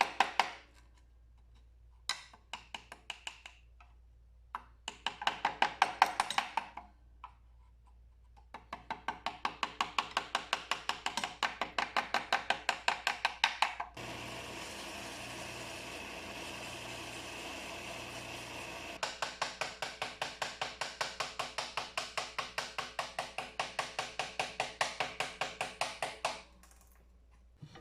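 Hammer driving a chisel into white oak in quick, even taps, about four or five a second, in several runs with short pauses. Midway a steady noise replaces the taps for about five seconds before the tapping resumes.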